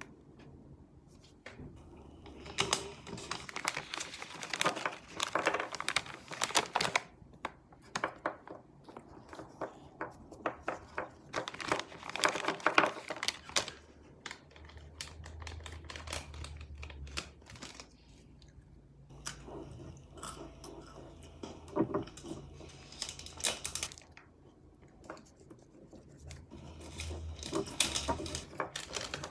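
Plastic snack bag crinkling and rustling in several bursts as biscuits are shaken out and handled, with quieter handling noise between the bursts.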